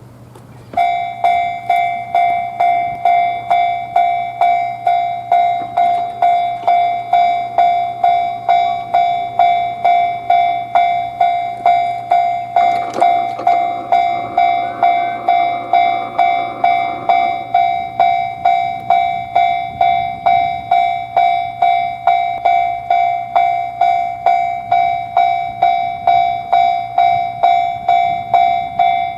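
Japanese railroad crossing warning bell ringing its "kan-kan" about twice a second, starting about a second in. Partway through, the rumble of a passing train rises under the bell for a few seconds.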